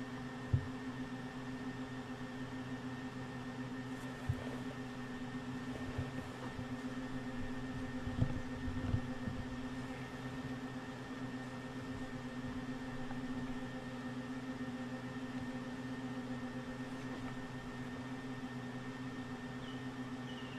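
Steady low mechanical hum with a few faint, scattered knocks.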